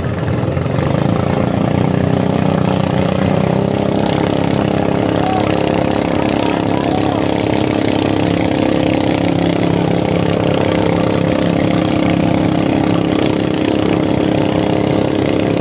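Boat engine running steadily under way, its level stepping up about a second in and then holding even.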